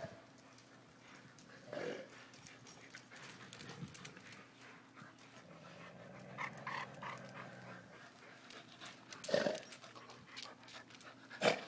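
Shar-Pei/Mastiff mix and Boston Terrier play-wrestling over a ball: scattered short, quiet sounds from the dogs, with a louder one about nine seconds in and another just before the end.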